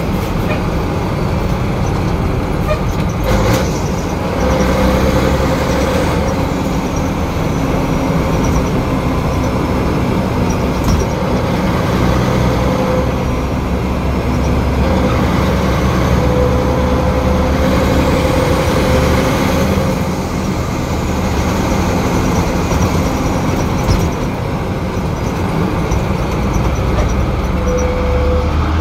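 Ford L9000's Cat 3406 inline-six diesel engine running steadily under load while the truck's air brakes are fanned on and off.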